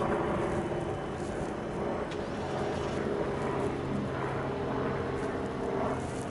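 Street traffic: a motor vehicle's engine running steadily over outdoor street noise.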